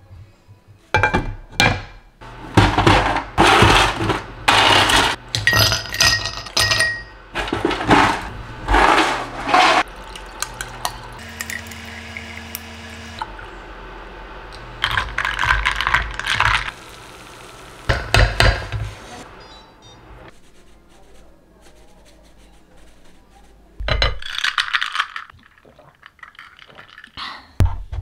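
Kitchen handling sounds. Crockery and a wooden spatula knock against a frying pan and plate, then glassware, dishes and cutlery clink repeatedly, some clinks ringing briefly. About halfway through there is a short steady hum, and espresso is poured over ice in a glass.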